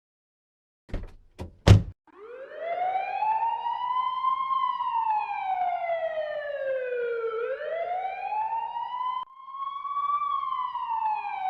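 A few quick thumps, then a tornado warning siren wailing, its pitch slowly rising and falling over several seconds and breaking off once abruptly near the end.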